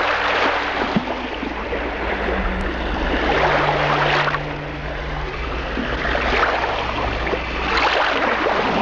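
Sea waves surging and washing in, swelling three times about four seconds apart over a steady low rumble.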